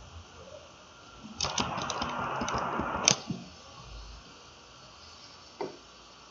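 Faint scratching of a stylus drawn across a tablet screen for about two seconds, starting a second in, with a tap where it starts and ends. A single click follows near the end.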